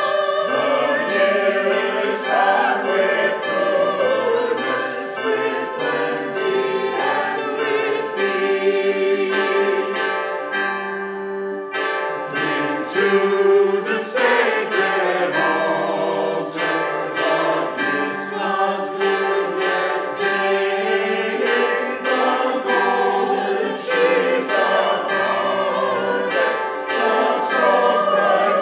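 Church choir of mixed men's and women's voices singing a choral anthem.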